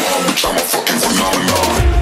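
Electronic background music; its heavy bass drops out, then returns strongly about a second and a half in.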